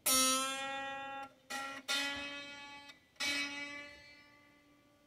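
A string on a Telecaster electric guitar plucked four times at about the same note, each pluck ringing and fading, the last left to ring out for about two seconds.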